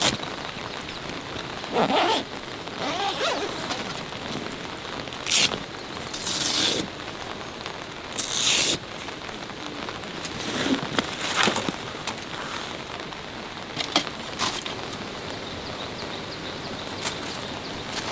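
Steady rain falling, with a few short, loud bursts of rustling and handling noise scattered through it.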